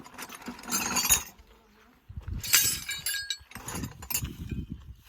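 Metal clinking and scraping of tools on steel parts, with a short ringing clink about two and a half seconds in.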